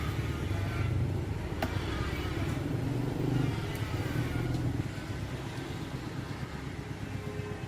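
A steady low mechanical rumble, like a motor running, that eases down a little about five seconds in, with a single sharp click near the start.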